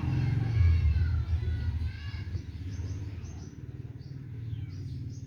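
Kittens mewing in thin, high-pitched squeaks, several in the first two seconds or so, over a steady low rumble.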